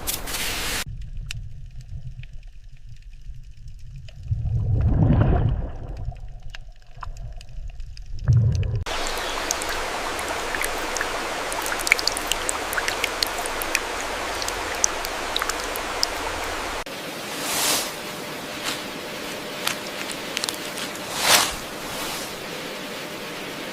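Running water of a stream or small river, a steady hiss with scattered small ticks and drips. The first several seconds are a muffled low rumble with one louder swell, and near the end a few short louder surges rise over the hiss.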